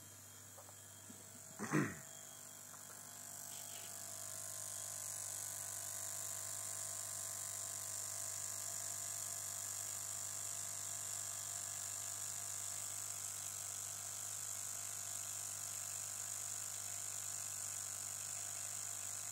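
Delphi 55 lb low-impedance fuel injectors firing rapidly in a bench test, a steady buzz with the hiss of fuel spraying into a glass measuring jug; it starts about three seconds in and holds steady. A single knock comes just before it.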